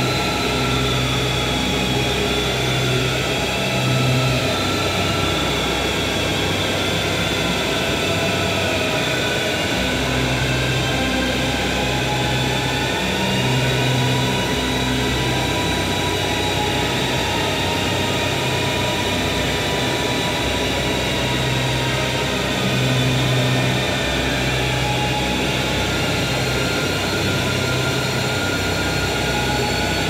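Experimental drone and noise music with a bowed violin: a dense, steady wash of noise with thin high tones slowly drifting in pitch, over a low pulsing throb that comes and goes in spells.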